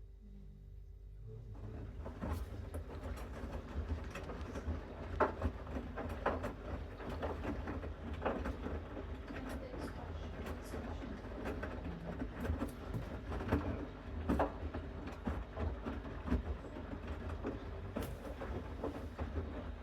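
Bosch Series 6 front-loading washing machine in its main wash. About a second and a half in, the drum starts turning, and the wet load tumbles and sloshes against a low motor rumble, with irregular soft knocks and clicks.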